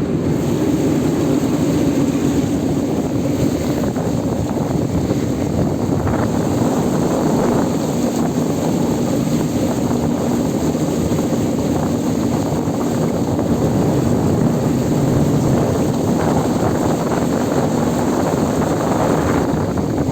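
Air-conditioning cooling tower running: its fan makes a steady drone with a low hum, over the rush of water falling through the tower.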